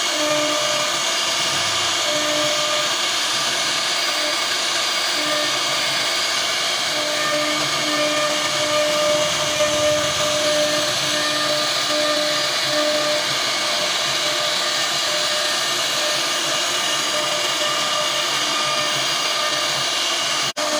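CNC router spindle running at high speed, cutting into wood with a steady high whine and hiss. A lower hum comes and goes in short, evenly spaced pulses in the middle.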